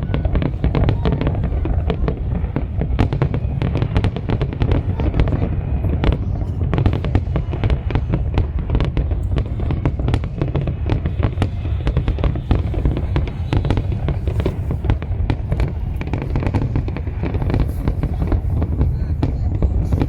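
Aerial fireworks display: a dense, continuous barrage of rapid cracks and bangs over a low rumble of bursting shells.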